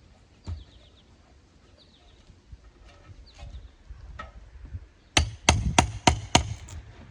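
Hammer blows on a tool digging into a rotten wooden clapboard: light knocks and scrapes, then a quick run of about five sharp, ringing strikes about five seconds in.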